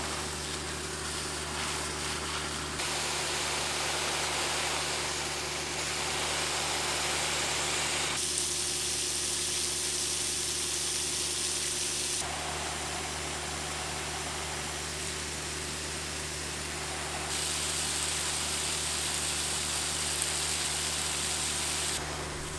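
Garden hose spray hissing while watering plants, its hiss growing brighter or duller every few seconds. A steady low hum runs underneath.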